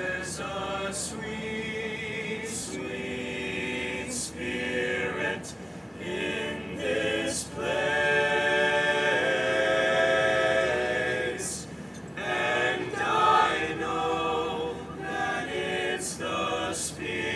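All-male a cappella group singing in harmony, with a long held chord the loudest part about eight to eleven seconds in.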